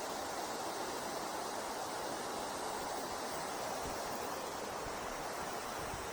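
Steady rushing of a flowing river, an even wash of water noise, with some low buffeting of wind on the microphone in the second half.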